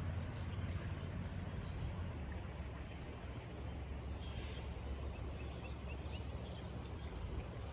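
Steady outdoor background noise with a low rumble, and a few faint bird chirps about halfway through.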